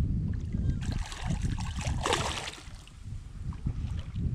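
Water splashing and sloshing around a kayak as a hooked piranha is reeled to the surface beside it, with two louder splashy washes about one and two seconds in, over a steady low rumble.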